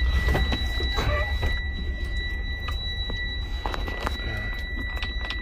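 Semi-truck diesel engine idling just after being started, a steady low rumble with a fast pulse. A steady high-pitched tone runs over it.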